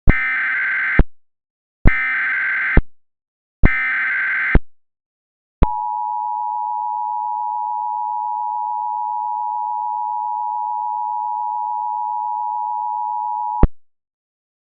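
Emergency Alert System signal: three short bursts of SAME header data tones, then the two-tone attention signal held steady for about eight seconds before cutting off. This sequence announces that an alert message is about to be read.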